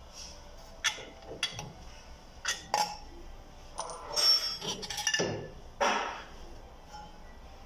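Metal hand tools and parts being handled, a string of about eight sharp metallic clinks and clanks with short ringing, loudest around the middle.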